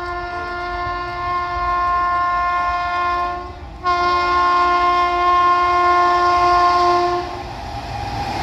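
WAP-7 electric locomotive horn sounding steadily as the express train approaches at speed, with a brief break about three and a half seconds in before a second long blast that stops about seven seconds in. Under it, the low rumble of the approaching train grows toward the end.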